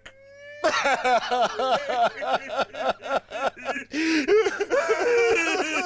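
A woman's exaggerated comic sobbing and wailing, in quick pitched pulses of about four a second that stretch into longer wails about two thirds of the way in.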